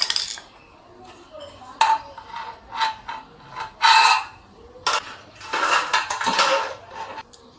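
Lightweight galvanised steel profiles clanking and rattling as they are handled and set down on a wooden block: a string of sharp metallic knocks, the loudest about four seconds in, then a longer rattling scrape near the end.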